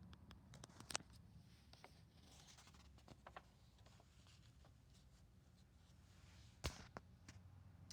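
Near silence: room tone with a few faint clicks, the clearest about a second in and near the end, and a soft rustle a little after two seconds.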